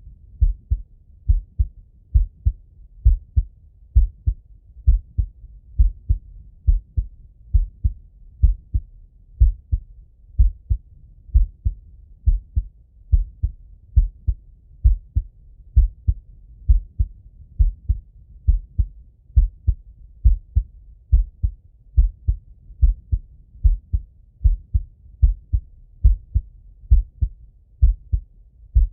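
Man's heartbeat heard through a stethoscope: a steady lub-dub of low thumps, about one beat a second.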